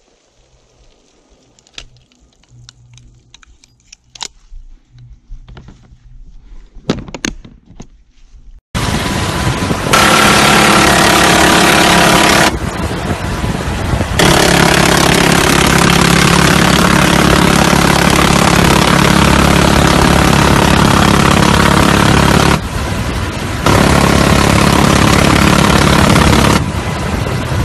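A few faint, sharp pistol cracks, then about nine seconds in a helicopter door gun starts firing long, continuous bursts over the sea. It runs as a dense, very loud buzzing roar that pauses twice briefly, with the helicopter's engine and rotor noise filling the pauses.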